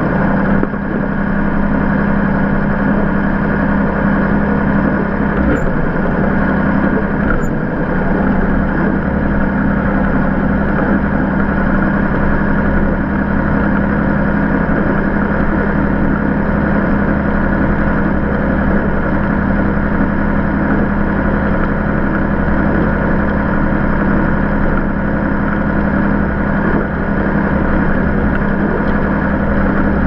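Tractor engine running steadily under way, a constant low drone with an even pitch throughout.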